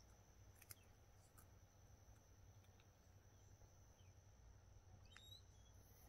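Near silence: faint steady background hum with a few light ticks.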